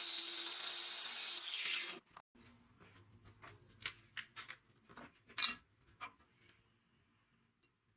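Electric power tool running steadily on a rusted hatchet, then switched off and winding down with a falling pitch about two seconds in. A few light clicks and knocks follow.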